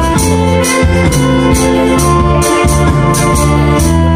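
Instrumental break of a trot song: an organ-like electronic keyboard sound holding chords over a steady drum beat, with no singing.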